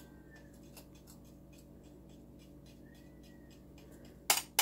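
Wooden spoon working packed brown sugar in a small bowl, breaking it up: faint quick ticks and scrapes, then two sharp knocks near the end.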